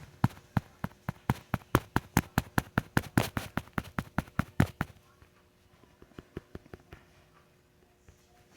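Rapid clicking at a computer, about four to five sharp clicks a second for roughly five seconds, then a few faint scattered clicks.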